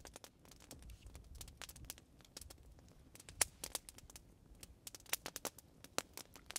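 Wood campfire crackling, with irregular sharp pops, the loudest about three and a half seconds in.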